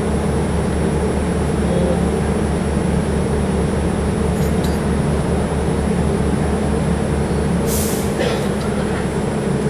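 Red Line subway car running, heard from inside the car: a steady rumble with an evenly pulsing low hum. About eight seconds in, a short sharp hiss, after which the low hum stops pulsing.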